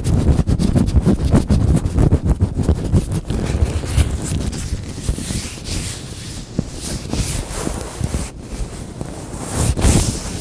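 Latex gloves rustled and rubbed by hand: a dense run of quick crackles for the first few seconds, then softer, smoother rubbing.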